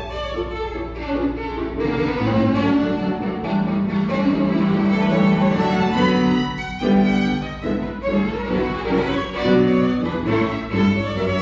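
Violin played with the bow in a classical piece, moving through changing notes and holding one long low note for several seconds in the middle.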